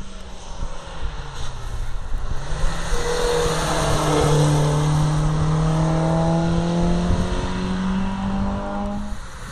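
A historic racing coupe's engine accelerating hard past and away up the hill, its note climbing slowly under load and dropping away near the end.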